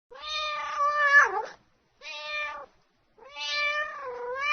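A cat meowing three times: a long meow that falls in pitch at its end, a short one, then a drawn-out meow that dips and rises again.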